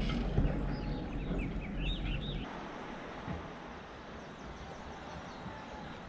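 A few short bird chirps over a low steady hum, then an abrupt switch about two and a half seconds in to a quieter, even outdoor rushing noise.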